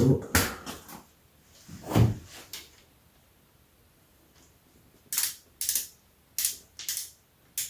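Bolts of a rear main seal flange being started and snugged by hand on a Volkswagen ALH TDI engine block: a few scattered knocks and clicks, then a run of short sharp clicks about every half second in the last few seconds.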